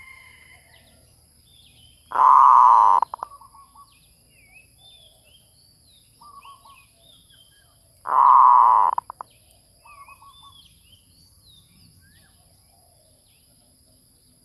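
Zebra dove (merbuk) calling: two loud, rapidly trilled coos about six seconds apart, each under a second long and each followed by a shorter, softer trill. Small chirps of other birds sound throughout.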